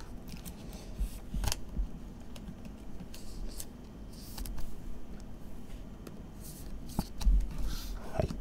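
Trading cards being slid into thin clear plastic sleeves and handled on a desk: scattered short plastic rustles and light clicks, with a few soft knocks as cards are set down.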